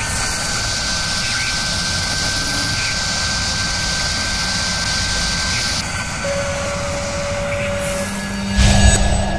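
Sound effects for an animated company logo: a steady, jet-like rushing noise with a thin high whine. Near the end a low hum comes in and a louder hit swells up.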